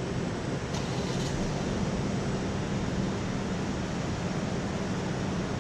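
Steady low mechanical hum under an even rushing noise, the running background of a large factory hall.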